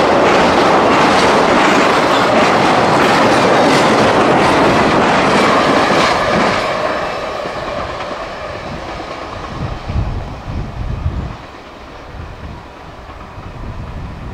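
Norfolk Southern freight train passing at speed, its wheels clattering over the rail joints, then fading away after about six seconds as the end of the train goes by. A few low rumbles follow near the end.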